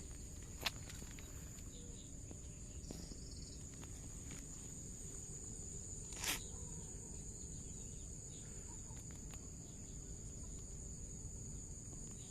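Steady, high-pitched insect trilling, like crickets, over low outdoor background noise, with a couple of sharp clicks, the louder one about six seconds in.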